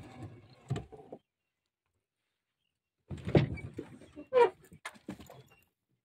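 Small wooden boat knocking and creaking as it comes against the river bank: a few hollow knocks in the first second, then after a gap a run of sharp wooden knocks and one short creak.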